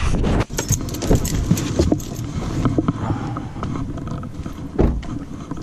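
Clicks, knocks and rustles of someone getting out of a parked car, with heavy thumps at the start and near the end.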